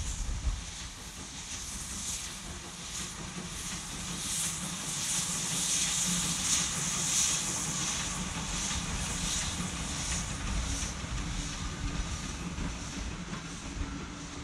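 Pt47 2-8-2 steam locomotive hauling a passenger train away: a steady hiss of steam over the low rumble of the moving train, growing louder through the middle and easing toward the end.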